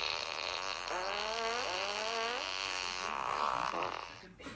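Fart sound effect playing: a long, wavering, pitched rasp whose pitch slides up and down for about a second and a half, followed by a shorter noisy burst.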